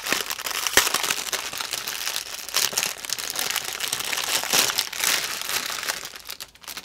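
Clear plastic bag of diamond painting drill packets crinkling and crackling as it is handled and pulled open, dying down near the end.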